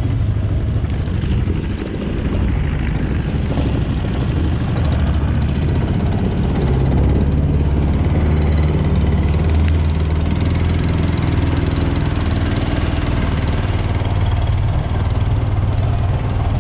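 Predator gas engine on a Mud-Skipper long-tail mud motor running steadily, pushing the duck boat along.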